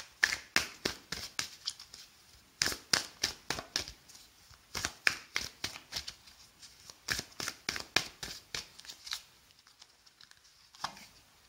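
A deck of oracle cards shuffled by hand: runs of quick papery flicks as the cards slide and slap against each other, in four or so spurts that stop about nine seconds in.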